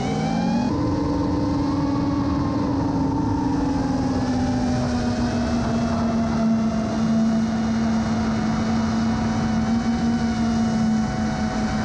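Electric motors of a camera-carrying quadcopter drone whining steadily, heard from the onboard camera with wind noise. The pitch steps up a little under a second in, then sinks slowly as the drone holds throttle.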